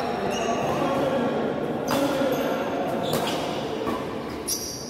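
Badminton racket strikes on a shuttlecock during a doubles rally: three sharp hits about a second and a half apart, ringing in a reverberant hall. Court shoes squeak briefly on the floor between the hits.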